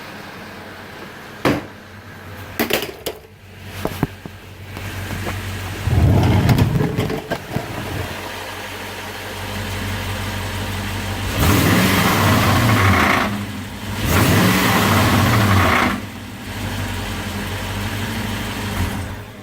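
Toyota Sequoia engine idling, with a few sharp knocks in the first seconds. It is revved three times, each rev rising and falling in pitch, to bring out the rattle from a damaged muffler.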